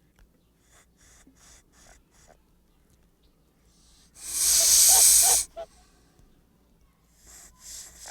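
Goose hissing: a few faint short hisses in the first couple of seconds, then one loud, long hiss lasting about a second and a half from about four seconds in, and more short hisses near the end.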